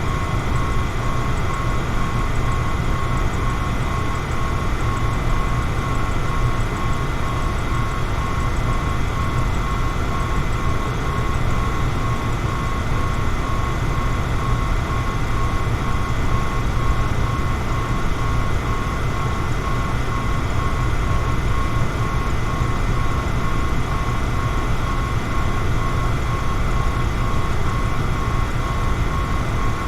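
Electric fan running steadily: an even rushing noise, heaviest in the low end, with a thin high tone held throughout.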